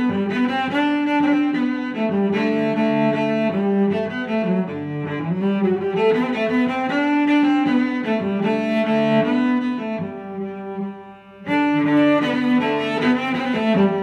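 Instrumental background music, a melody of sustained notes, with a brief break about eleven seconds in.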